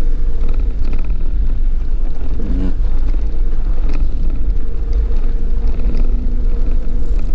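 A Jeep driving on a gravel road, heard from inside the cab: a steady, loud low rumble of engine and tyres on gravel, with a constant hum over it.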